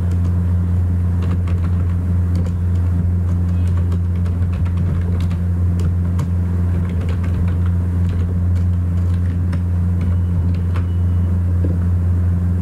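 A steady, loud low hum from the recording setup, with faint scattered keyboard clicks as code is typed.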